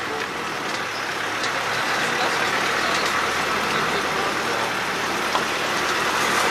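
A fast mountain river rushing steadily.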